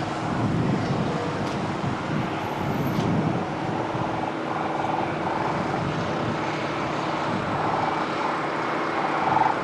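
Steady engine noise with faint steady hums and no distinct strikes.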